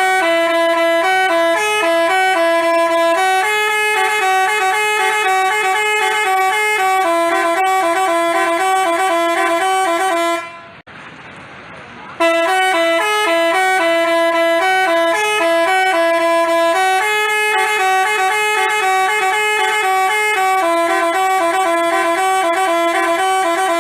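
Telolet basuri multi-tone musical horn playing a tune of stepping notes, two or three tones sounding together. It plays in two long runs of about ten seconds each, with a short break in between.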